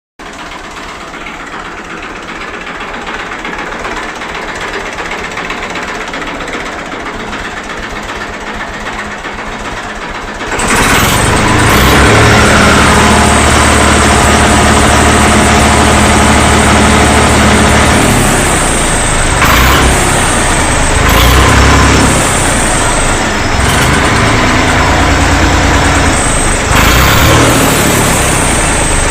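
Massey Ferguson 135 tractor engine running through its original UK-made silencer. The exhaust note gets much louder about ten seconds in and shifts a few times later on, with a thin high whistle from the silencer over it.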